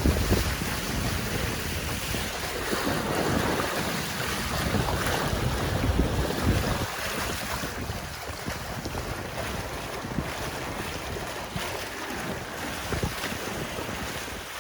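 Strong wind buffeting the microphone over water splashing and lapping against a boat. It is heavier for the first seven seconds or so, then eases a little.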